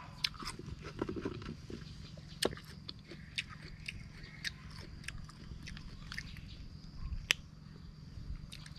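A person eating raw ambarella fruit with chili sauce: quiet chewing and mouth clicks, with scattered sharp clicks, the loudest about seven seconds in. A faint steady low hum lies underneath.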